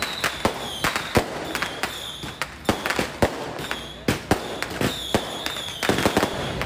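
Firecrackers going off in a rapid, irregular run of sharp bangs, several a second, with a high whistle-like tone recurring between them.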